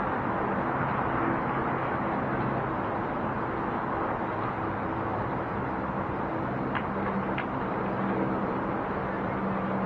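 Steady downtown city traffic noise heard from a high-rise balcony: a continuous wash of cars and engines with a low hum underneath. Two short high-pitched sounds come about seven seconds in.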